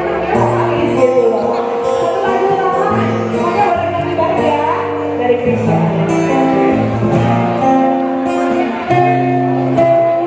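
Live music: a woman singing into a microphone over acoustic guitar, played through a PA.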